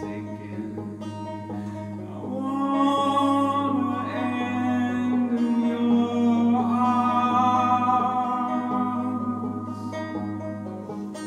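Man singing a slow folk song in long held notes to his own plucked banjo accompaniment; the voice comes in about two seconds in, over the banjo.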